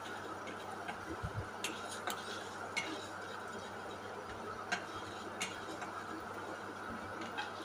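A spatula stirring whole spices (coriander seeds, cumin, fennel, dried red chillies) dry-roasting in a nonstick wok: light scraping, with a few sharp, irregular clicks of the spatula and seeds against the pan over a steady faint hiss.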